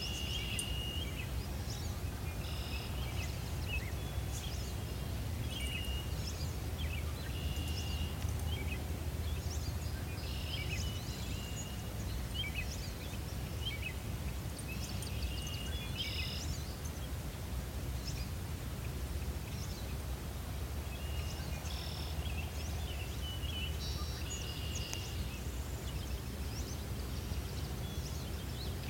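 Wetland ambience: scattered short, high-pitched calls from birds or frogs, some held as brief trills, over a steady low rumble.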